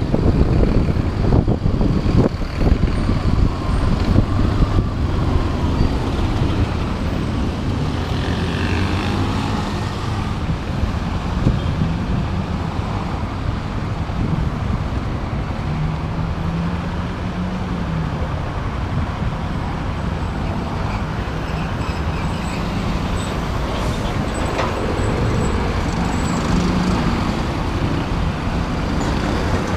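Motorcycle engine running while riding in city traffic, its pitch rising and falling with the throttle, over road and wind noise on the camera microphone.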